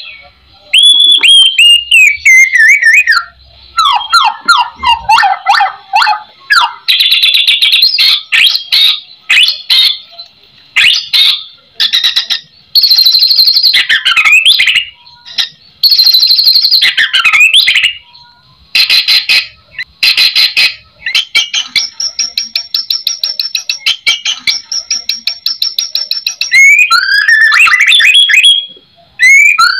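White-rumped shama (murai batu) singing a long, varied song of clear whistles, falling slurred notes and fast rattling trills, in phrases broken by short pauses. The song is packed with many different phrase types, the 'full isian' style prized in murai batu.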